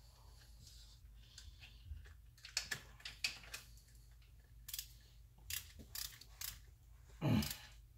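A hand ratchet clicking in short, irregular bursts as the half-shaft bearing bracket bolts are given a final tightening, with a louder, lower sound about seven seconds in and a steady low hum underneath.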